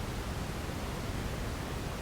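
Steady synthetic white noise: an even, unchanging hiss across the whole range, with more weight in the low end than the highs.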